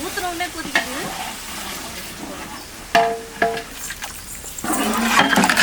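Metal ladle stirring meat and masala frying in oil in a large pot, with a steady sizzle. The ladle strikes the pot in a few ringing metal clanks, two close together about three seconds in, with denser scraping and clattering near the end.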